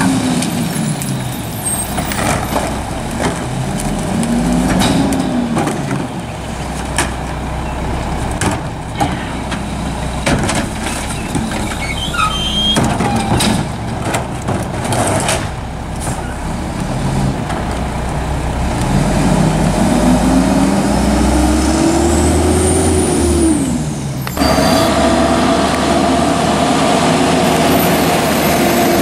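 Mack MR rear-load garbage truck's diesel engine revving up and falling back several times, as it does when driving the rear packer, with recyclables clattering and knocking into the hopper in between. About 24 seconds in the sound changes abruptly to the truck driving, its engine running with a steady whine.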